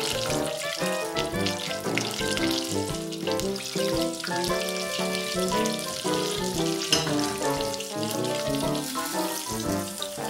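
Chicken pieces deep-frying in hot palm oil, a steady sizzle, under background music with a busy run of changing notes.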